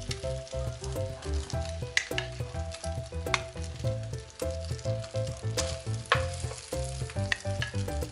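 Egg-dipped bread sizzling softly as it fries in a pan, under light background music with a steady beat. There are a few light clicks of a wooden spatula against a steel bowl.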